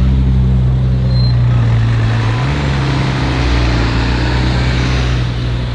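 A vehicle engine running steadily at low revs, its note stepping up slightly about halfway through, over street traffic noise.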